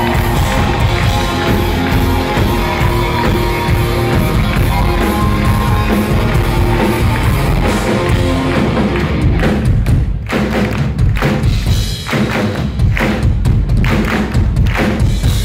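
Live rock band playing loudly through the venue's PA, heard from within the crowd. About nine seconds in, the full sound thins out to a steady beat of heavy thumps, about two a second.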